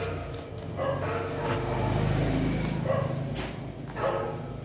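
A small puppy making playful barking sounds as it bites and tugs at a person's trouser leg, with a low drawn-out sound lasting about a second and a half in the middle.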